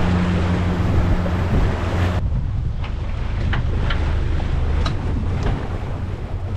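A small boat's motor hums steadily under heavy wind buffeting on the microphone. About two seconds in this gives way to wind and water noise with a few short clicks.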